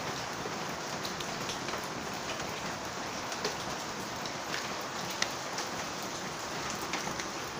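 Steady rain falling, with individual drops landing close by at irregular moments.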